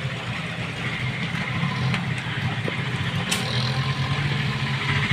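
Steady low, finely pulsing rumble of a motor vehicle engine running nearby, with street traffic noise.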